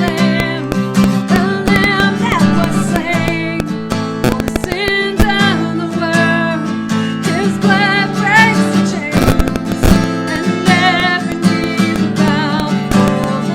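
Strummed acoustic guitar with a voice singing a wavering melody with vibrato over it.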